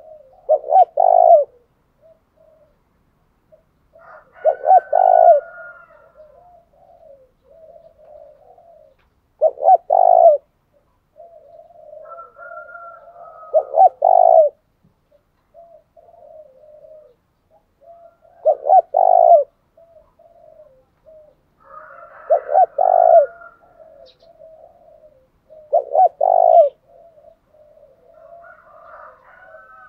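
Spotted doves cooing: a loud coo phrase every four to five seconds, with softer, lower cooing in between.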